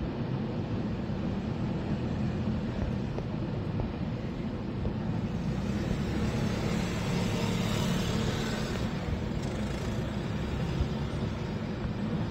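Steady rumble of a container freight train rolling across a stone-arch viaduct, with a brighter hiss swelling about two-thirds of the way in.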